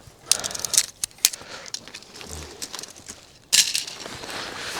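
Footsteps crunching on a rough dirt and gravel trail, an uneven run of scuffs and crunches, with a louder burst of crunching about three and a half seconds in.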